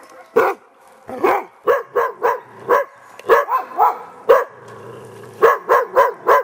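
Hunting dog barking repeatedly, about fourteen sharp barks in uneven runs, with a short pause about two-thirds of the way through.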